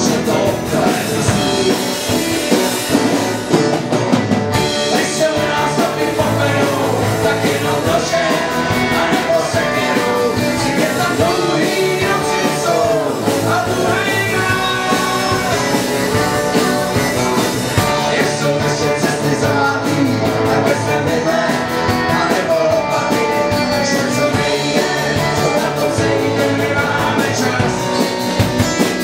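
Live band playing a song on several strummed acoustic guitars, with a boy and a man singing.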